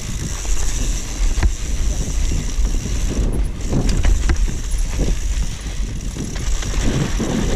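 Mountain bike descending a dry dirt trail: tyres rumbling over the ground with steady wind buffeting the microphone, and the bike rattling and knocking sharply over bumps.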